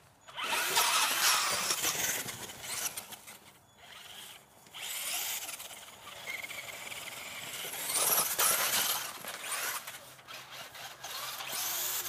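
Radio-controlled car's motor whining in several bursts as it speeds up and slows down across snow.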